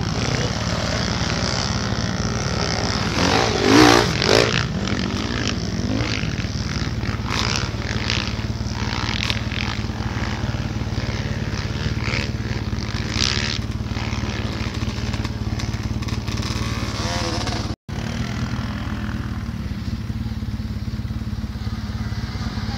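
Quad bike (ATV) engine running steadily at idle close by, with a couple of louder surges about three and four seconds in. The sound drops out for an instant about three-quarters through, then the engine runs on.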